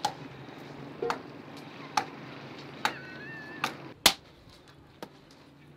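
Hatchet chopping firewood into kindling on a wooden block: seven sharp strikes, about one a second, the loudest a little after four seconds.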